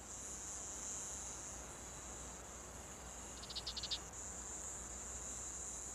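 Faint, steady high-pitched insect chorus, with one short chirp of about seven rapid pulses a little past the middle.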